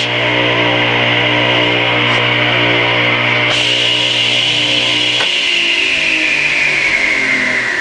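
Craftsman 8-inch direct-drive table saw motor running with a steady electrical hum and a high whine. About five seconds in a click cuts the hum off, and the whine slowly falls in pitch as the motor coasts down after being switched off.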